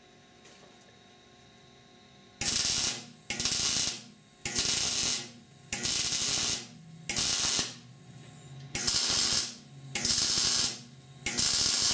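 MIG welder stitch welding thin, rusty sheet steel: about eight short bursts of sizzling arc, each under a second, starting a couple of seconds in. The arc is laid down in short stitches so the thin, rusty metal doesn't burn through.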